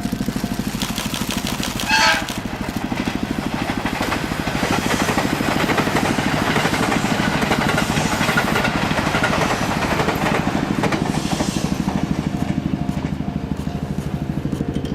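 JR Central 371 series electric train passing over a level crossing, its rolling and motor noise building to a steady loud rush through the middle and easing off near the end. A brief loud tone rising in pitch comes about two seconds in, likely the train's horn. The level-crossing bell's repeating ring comes back through the train noise as it fades.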